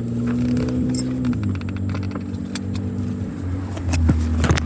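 Car engine idling, heard from inside the cabin; its steady low note steps down slightly about a second and a half in. Scattered small clicks and knocks sound over it, louder near the end.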